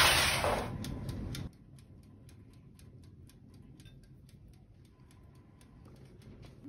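A loud burst of noise, about a second and a half long, that cuts off abruptly, followed by faint, steady ticking at about four ticks a second.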